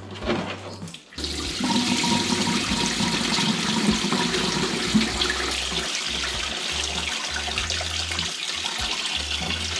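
Coolant pouring from a disconnected radiator hose into a bucket, starting suddenly about a second in and then running steadily as the cooling system drains.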